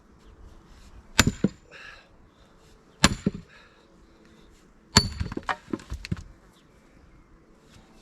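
Three heavy hammer blows on a large round of firewood, about two seconds apart, each struck with a short metallic ring and followed by smaller knocks. The third blow is followed by a second of clattering knocks as the wood gives.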